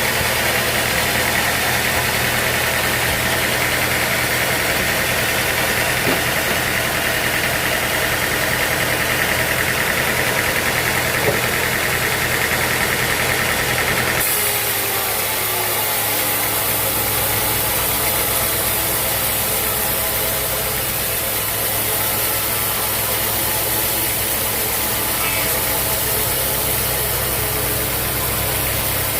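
Engine-driven sawmill machinery running steadily, a loud continuous hum that changes character abruptly about halfway through.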